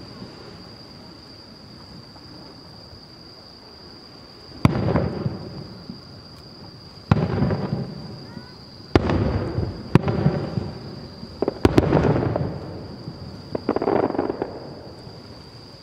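Aerial fireworks shells bursting: six sharp booms, the first about five seconds in, each trailing off in a rolling rumble.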